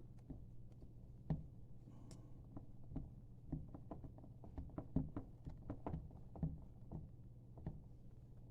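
Soft, irregular pats and taps, about two or three a second, of hands packing sticky green sand into a wooden core box, over a faint steady low hum.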